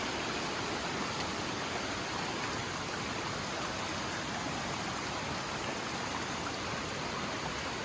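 Steady rush of water from a full creek running over rocks and small falls.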